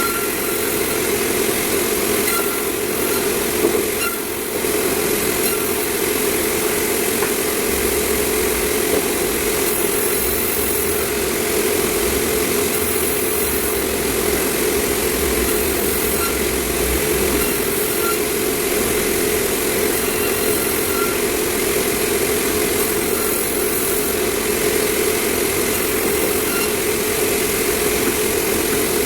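Sawmill machinery running steadily: a constant loud mechanical drone with a strong hum and no let-up.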